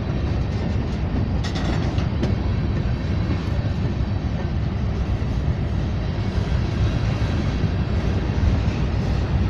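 Freight train rolling past: a steady low rumble of wheels on rails, with a couple of short clanks about two seconds in.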